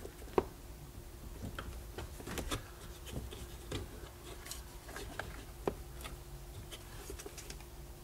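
Scattered small clicks and creaks of a tight-fitting car interior trim panel and rubber door seal being worked loose by hand, with a sharp click about half a second in and another near the end. A faint steady hum runs underneath.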